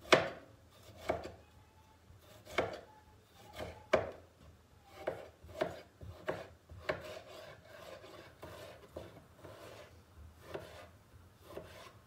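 Kitchen knife cutting tomatoes on a wooden cutting board: a series of sharp knocks of the blade on the board, roughly one a second at an uneven pace.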